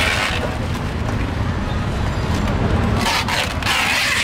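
Busy street-market ambience: vehicle engines running steadily under the indistinct voices of a crowd.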